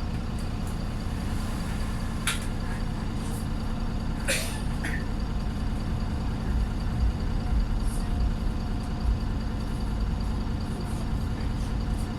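Diesel engine of an Arriva Wright Pulsar single-deck bus running under way, heard from inside the saloon, with the thrash of an engine the uploader calls tired. It gets louder between about six and nine seconds in, and two brief sharp sounds come about two and four seconds in.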